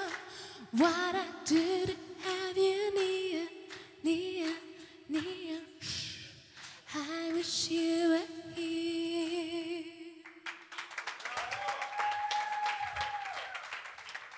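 Female vocalist singing live into a microphone, with long held notes. The singing ends about ten seconds in and the audience claps.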